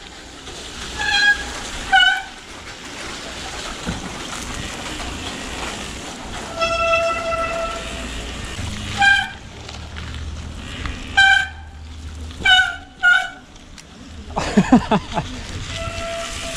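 Wet bicycle brakes squealing in the rain: a string of short high squeals, with one longer held squeal about seven seconds in, over steady rolling noise.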